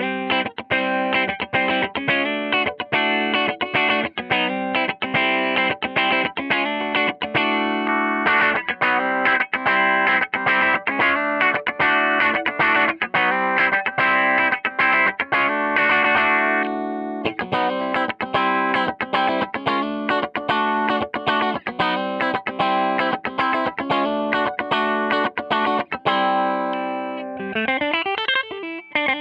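1988 Kramer Night Swan electric guitar through a Tone King Imperial MK 2 amp on a clean tone pushed a bit hot, playing fast runs of picked single notes. Near the end the notes slide up and down in pitch.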